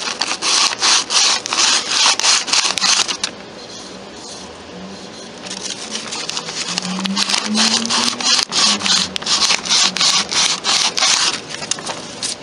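Sandpaper, 220 grit, rubbed by hand over a wooden handle piece with a brass pin: quick back-and-forth rasping strokes, about three a second. The strokes pause for about two seconds a little after three seconds in, then resume.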